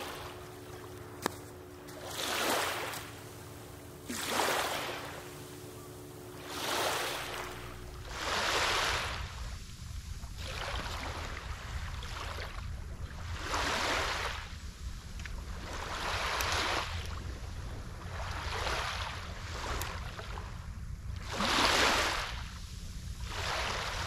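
Small waves washing up on a sandy beach, one surge rising and falling every two to three seconds. From about a third of the way in, wind rumbles on the microphone.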